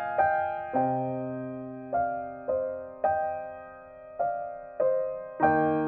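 Slow, gentle background piano music: single notes and chords struck one after another, each left to ring and fade.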